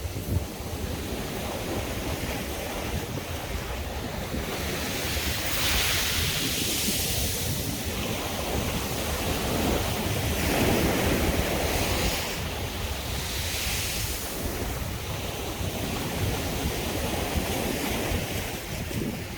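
Sea waves breaking and washing up on the beach in slow swells, the loudest surges about six seconds in and again around ten to fourteen seconds in.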